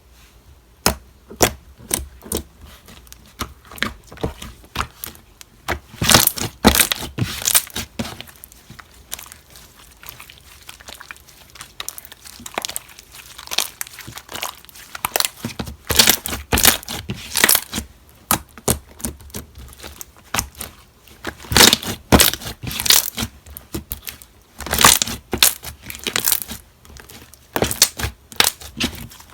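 Slime being squeezed, folded and stretched by hand, giving dense runs of crackling clicks and pops, in louder bursts every few seconds.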